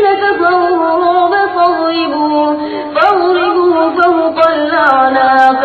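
Melodic Quran recitation in tajwid style by a single high-pitched voice, drawing out long ornamented notes. A new phrase begins about three seconds in.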